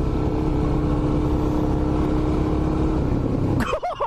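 A vehicle engine running at a steady speed: a steady hum over a low rumble, which gives way to voices near the end.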